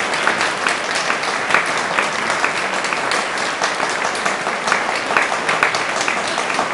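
Concert audience applauding steadily: a dense, even patter of many hands clapping.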